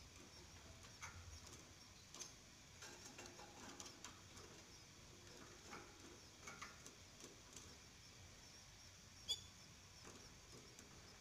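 Very faint, scattered high cheeps and small ticks from canaries, with one sharper short chirp about nine seconds in.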